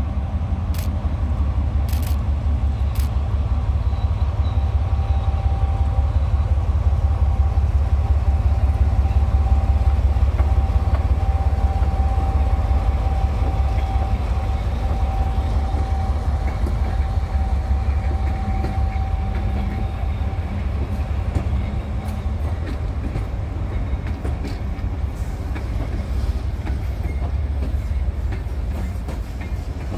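ÖBB class 2067 diesel-hydraulic shunting locomotive running past with a rake of passenger coaches: a deep steady engine rumble that is loudest about ten seconds in and eases as the coaches roll by. A thin steady whine rides over it until about twenty seconds in.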